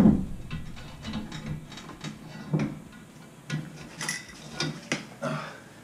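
Porcelain urinal being lifted against a tiled wall and set onto its hanger brackets: a hard knock at the start, then a string of irregular clicks and knocks as the china bumps and scrapes on the tile and brackets.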